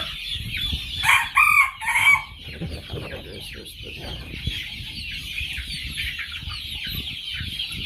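A brooder full of young chickens peeping and chirping all at once. About a second in, one bird gives a louder, harsher call that lasts about a second.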